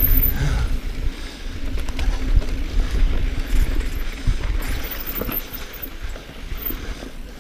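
Intense Tracer mountain bike riding a dusty dirt singletrack: tyres rolling over dirt and rocks with wind rumble on the camera microphone, and a few sharp clicks and rattles from the bike.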